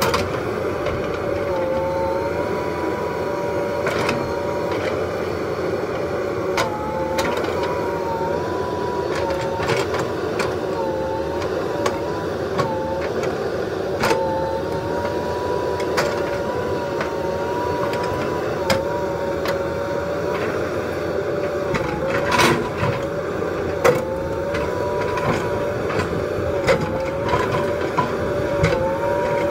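JCB 3DX Super backhoe loader's diesel engine running steadily while the backhoe arm works. Its pitch dips briefly now and then as the hydraulics take load, and there are occasional sharp knocks.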